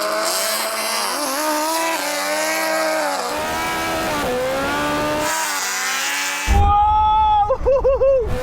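High-revving racing engines accelerating hard, their pitch climbing and dropping through gear changes. Near the end a louder engine holds a steady high note and then pulses rapidly four or five times.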